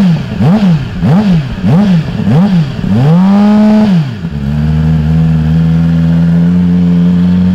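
Stock Yamaha R6 600 cc inline-four sport bike engine on its standard exhaust, blipped quickly about five times in a row. It is then held up in revs for about a second and drops back to a steady idle.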